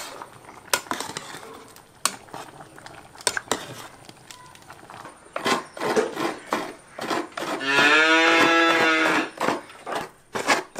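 A cow moos once near the end, a loud call lasting about a second and a half. Before it come scattered clicks and knocks of kitchen utensils and of hands on a steel plate.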